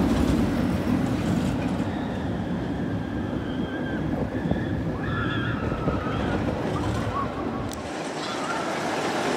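Arrow suspended roller coaster train rushing past on its steel track, a low rumbling rush that eases off as the train moves away, with wind noise on the microphone.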